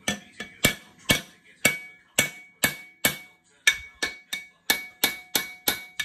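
Hammer blows on metal, repeated about two to three times a second and getting a little quicker near the end, each with a short metallic ring.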